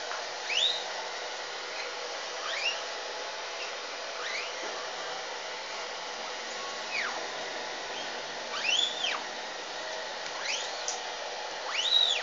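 Steady blowing of a hot-air dryer. Short high chirps that rise and fall come through every second or two, loudest near the end.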